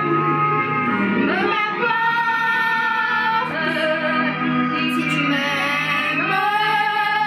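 A woman singing long, held notes that slide between pitches, over a song's musical accompaniment.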